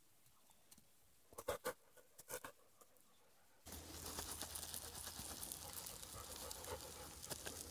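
A few soft clicks and knocks, then, about three and a half seconds in, a steady sizzle full of fine crackles: bannock dough frying in butter in a frying pan on campfire coals.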